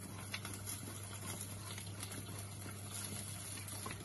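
Pecorino being grated on a metal box grater: faint, irregular rasping strokes over a steady low hum.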